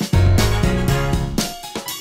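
Background music with a drum kit and bass line playing a steady beat.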